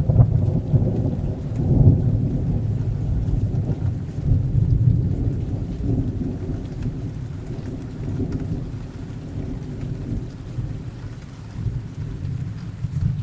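Recorded thunderstorm sound effect: thunder rumbling over steady rain. The rumble starts sharply, swells again about two and five seconds in, then slowly dies away under the rain.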